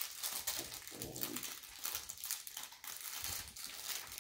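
Packaging crinkling and rustling as it is handled, in many small irregular crackles.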